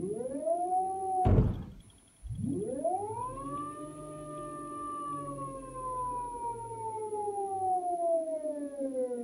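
A 2011 Nissan Leaf permanent-magnet AC motor spinning with no load, its whine rising in pitch as it speeds up. About a second in there is a loud bang and the whine cuts off: the throttle set to zero while it is still spinning, the strong magnets bringing it to a sudden halt. It then spins up again, the whine climbing and then slowly falling in pitch.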